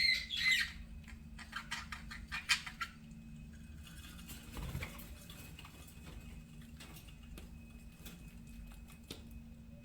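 Budgerigars chirping in a quick flurry of short, high calls during the first three seconds, then only faint clicks and scratches with a soft thump about halfway through. A faint steady hum runs underneath.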